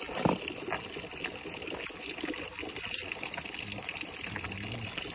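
Steady splashing and trickling of water in a metal bowl as a wet, dark-feathered bird is plucked by hand.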